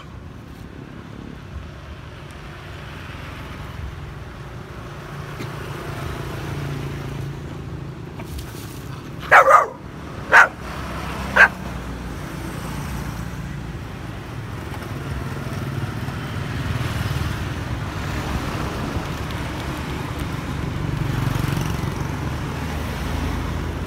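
A dog barks three times, about a second apart, over a steady low rumble.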